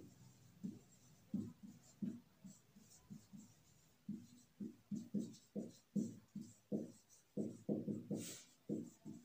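Marker pen writing on a whiteboard: a string of short strokes, sparse at first, then coming about two a second from about four seconds in.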